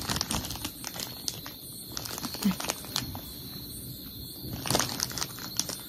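Clear plastic snack bag crinkling and rustling as it is handled, with scattered small crackles and a louder rustle about five seconds in.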